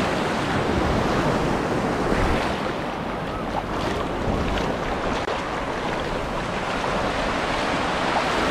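Shallow sea surf breaking and washing, a steady rushing of water, with wind on the microphone.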